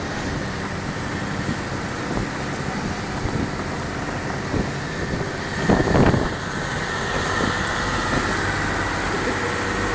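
A fishing boat's engine running steadily under way, a constant low hum under a haze of wind and water noise, with a brief louder rush about six seconds in.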